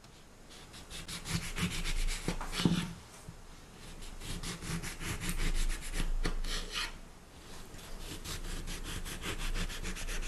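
A ceramic knife sawing back and forth through a whole orange's peel and flesh on a wooden cutting board, slicing it into thin rounds. The strokes make a rapid rasping that swells and eases, with a few sharp clicks along the way.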